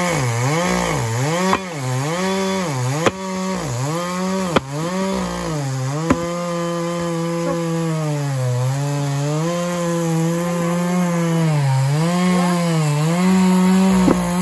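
Two-stroke chainsaw cutting firewood logs, the engine note sagging and recovering as the chain bites into the wood, about every three-quarters of a second at first, then holding steadier through longer cuts. A few sharp knocks come about a second and a half apart in the first half.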